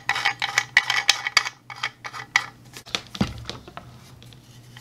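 Handling clatter of a plastic surge-protector enclosure and its threaded metal fitting: quick clicks and rattles for the first two seconds or so, one dull thump about three seconds in, then quieter handling.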